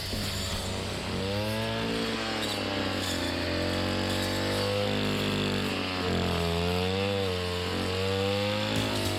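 Small petrol engine of a grass-cutting machine running, its pitch rising and falling again and again as the load of the grass changes, over a steady low hum.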